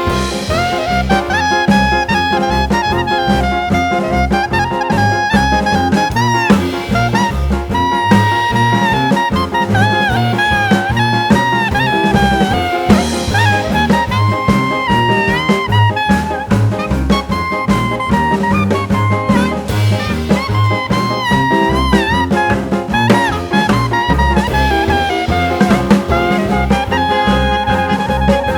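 Background jazz music in a swing style, with brass and saxophone melody over a walking bass and drum kit, at a steady beat.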